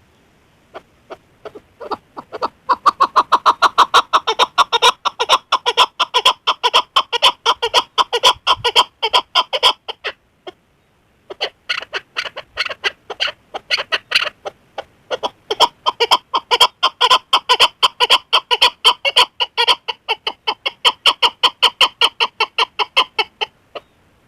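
Chukar partridge calling: a long run of fast, repeated 'chuk' notes, several a second, that builds up over the first few seconds, breaks off briefly about ten seconds in, then resumes and stops shortly before the end.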